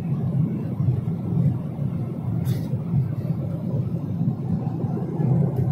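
Steady low rumble of an aircraft cabin in flight, with a brief click about two and a half seconds in.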